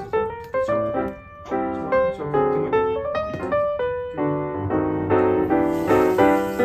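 Background piano music: a light melody of struck notes with chords.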